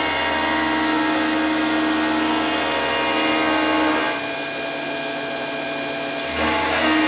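Milling machine spindle running with an end mill cutting a pocket in a metal block: a steady machine whine whose note shifts about four seconds in and again near six seconds.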